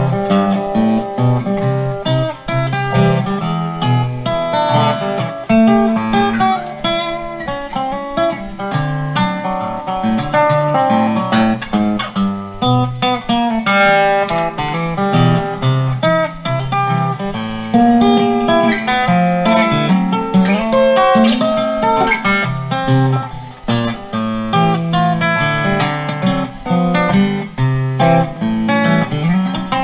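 Acoustic guitar playing an instrumental break in a song, strummed chords with quickly changing notes and no singing.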